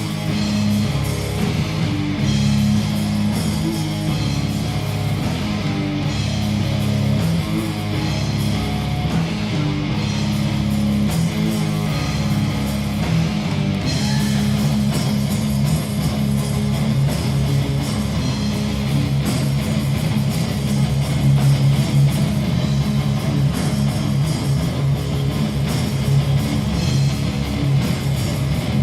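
Rock band playing an instrumental passage live, with electric guitar and bass guitar and no vocals.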